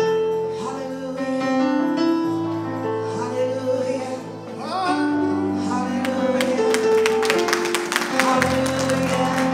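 Church worship music: a keyboard holding sustained chords while a voice sings. About six seconds in, a quick run of sharp percussive hits joins in.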